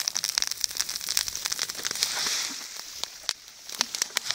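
Small brush fire set off by burning sparklers, crackling with many rapid sharp pops and snaps. A short hiss comes about two seconds in, and the pops thin out near the end.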